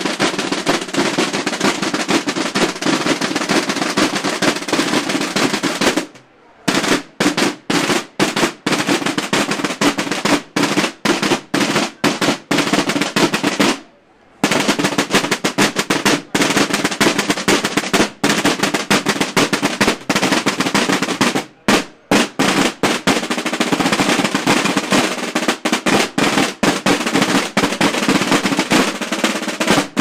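A group of Alcañiz Holy Week drums (tambores) beaten with wooden sticks, playing a fast, dense rolling rhythm together. The drumming breaks off for a moment three times.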